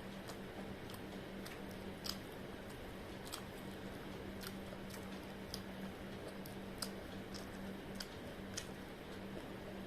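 A person chewing fried momos, with short sharp mouth clicks and smacks coming irregularly about once or twice a second, the loudest about two seconds in. A faint steady hum runs underneath.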